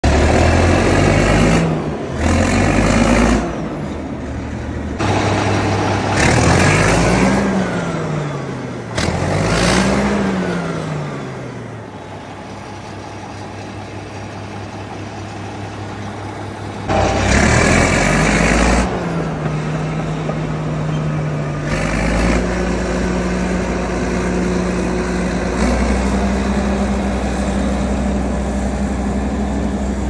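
Caterpillar D9 bulldozer's diesel engine revving up and down several times with loud bursts of throttle, while its exhaust stack blows dark smoke. From about two-thirds of the way in it settles to a steady run at a higher speed.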